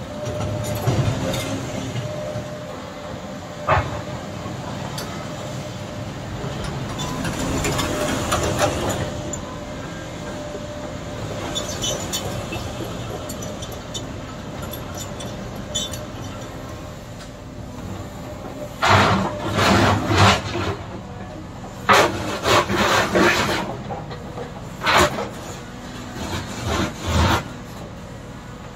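Cat tracked excavator with a tiltrotator running steadily as it swings its boom and bucket. From about two-thirds of the way in come a dozen or so short, loud scrapes and clatters against crushed stone.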